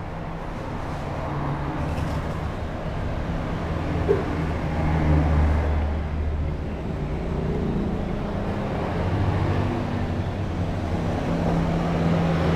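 Road traffic going by: a low engine hum that rises and falls, swelling about five seconds in and again near the end. A single light click a little after four seconds.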